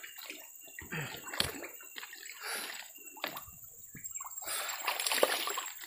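Lake water splashing and sloshing in uneven bursts as a man wades in the shallows and grips a hooked toman (giant snakehead) at the surface. The splashing gets busier and louder about four and a half seconds in.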